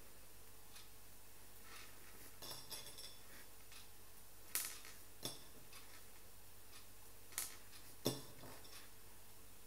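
Small beads clicking and clinking against a plate as they are picked up and threaded onto a needle: a handful of sharp, scattered clicks.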